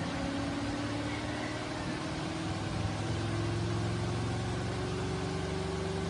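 Spin dryer of a Sharp 6.5 kg twin-tub washing machine running through its spin cycle: a steady motor hum with a whine that rises slowly in pitch.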